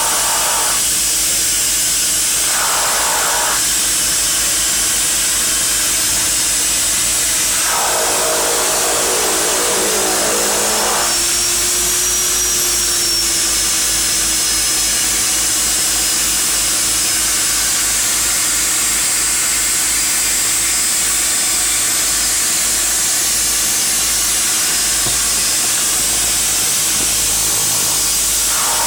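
Seaplane's engines and propellers running steadily, loud inside the cockpit, as the aircraft moves across the water. A few short surges of rushing noise ride on top, the longest from about eight to eleven seconds in.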